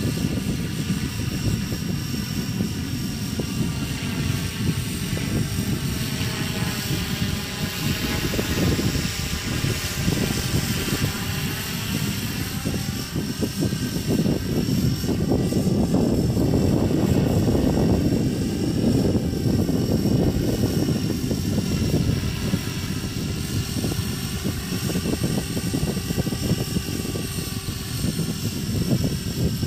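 Radio-controlled model helicopter flying: a steady rotor and motor sound, its pitch drifting up and down and swelling a little in the middle as the helicopter moves around the sky.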